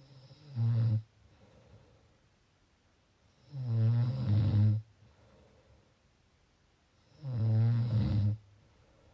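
A person snoring: three loud, low-pitched snores about three and a half seconds apart, the first one short, with soft breathing between them.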